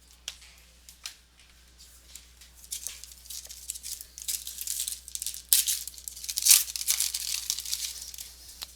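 A few light clicks, then several seconds of crinkling and tearing as a trading-card pack wrapper is ripped open, loudest a little past the middle.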